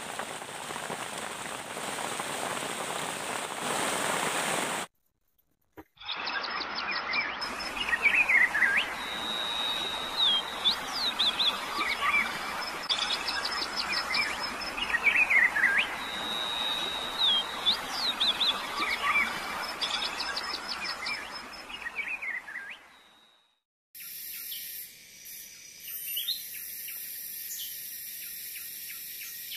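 Steady rain for about five seconds, then after a short gap, forest birds calling over a steady hiss: repeated short chirps and quick falling whistles. This fades out, and near the end a high, even insect drone takes over.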